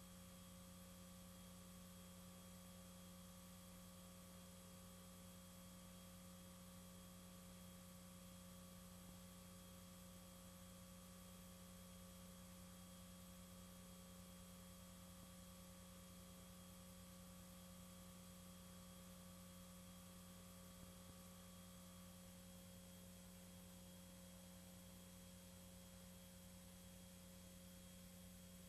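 Near silence: a faint steady electrical hum with a few thin steady tones over a low hiss. The highest-pitched of the middle tones drops out a little past three-quarters of the way through.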